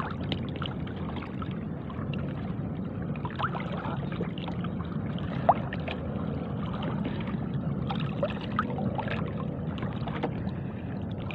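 Seawater sloshing and swishing around the legs of someone wading slowly through waist-deep shallows, with small splashes and a single sharp click about halfway through.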